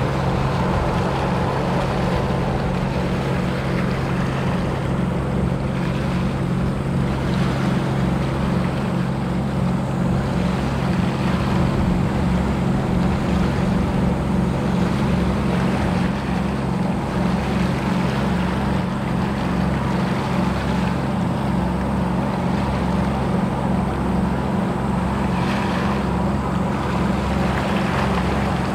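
Steady low machinery drone of a Murasame-class destroyer under way and passing close, two constant hums with a throbbing underneath, over an even hiss.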